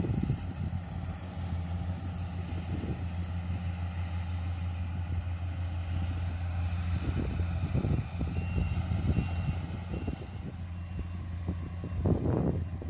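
Yanmar YH470 combine harvester's diesel engine running steadily with a low hum. From about two-thirds of the way in, a short high warning beep repeats roughly every 0.7 s, and a brief louder clatter comes near the end.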